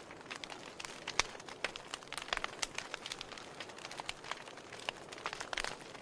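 Wood fire crackling: burning logs and embers giving irregular sharp pops and snaps over a faint steady hiss, with one loud pop about a second in and a quick run of snaps near the end.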